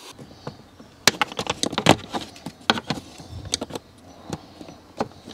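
Scattered sharp clicks and knocks of hands working parts and fittings loose under a car's dashboard.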